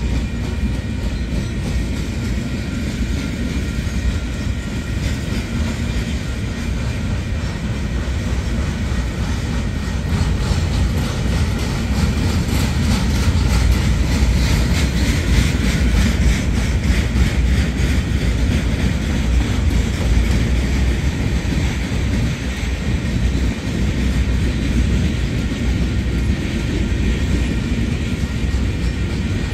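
Freight train of loaded flatcars rolling past: a steady rumble of steel wheels on rail with rhythmic clickety-clack over the rail joints, a little louder around the middle.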